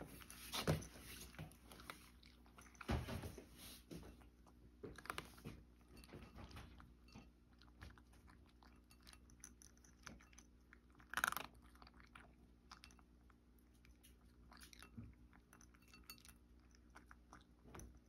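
Cat crunching dry kibble: faint, irregular crunching and chewing, with a few louder crunches scattered through.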